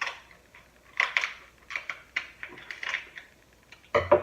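Close-up eating sounds of a seafood boil: irregular bursts of sharp crunching and clicking as crab shell and food are broken and chewed, about six or seven bursts.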